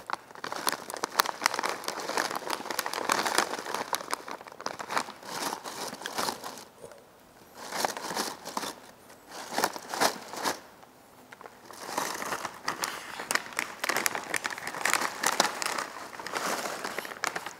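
Plastic snack bag crinkling and crackling as it is squeezed and handled close to the microphone. The sound comes in bursts, with two short pauses.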